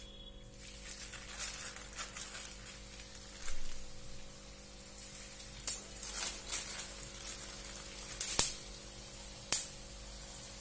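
Thattai (rice-flour crackers) deep-frying in hot oil in a kadai: a steady sizzle broken by a few sharp pops and clicks, the loudest about eight seconds in.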